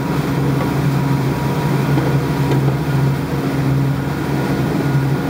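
A boat's engine running at a steady speed, a constant low hum that holds one pitch.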